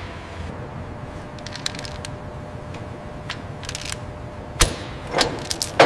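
Steel tie-down chains clinking and a ratchet load binder clicking as the chains are tightened. A few scattered light clicks come first, then near the end a quick run of louder sharp metallic snaps, over a steady background hum.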